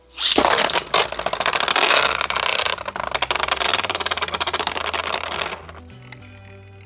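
Two custom 3D-printed Beyblade spinning tops launched and spinning, clattering and scraping against each other in a rapid rattle that starts suddenly and stops about five and a half seconds in.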